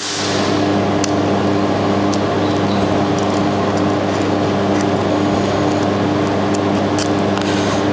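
Steady machine hum of a running handheld fiber laser welding machine, several even tones over a fan-like hiss, with a few faint clicks as the filler wire is threaded into the feed nozzle.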